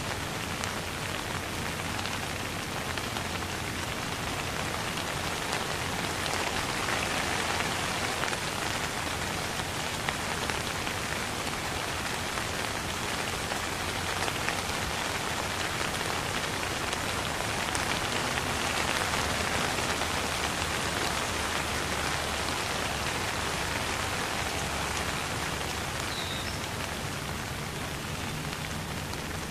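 Steady rain falling on a wet street and foliage: an even hiss of many small drops, with no let-up.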